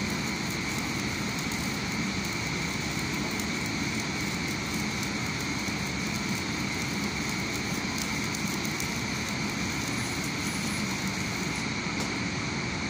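Arc welding on a steel overhead crane rail: the arc crackles and sputters steadily, then stops near the end.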